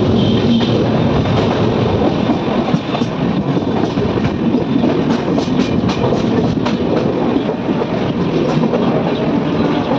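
Howrah–Amritsar Mail passenger train running, heard from an open coach door: a steady rumble of the coaches with the wheels clattering on the rails, and a run of sharp clicks in the middle.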